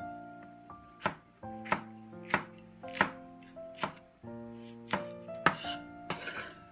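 A cleaver chops chili peppers on a wooden cutting board in seven sharp strokes, mostly about two a second with a short pause before the last two. Near the end the blade scrapes across the board as the slices are gathered. Soft background music plays underneath.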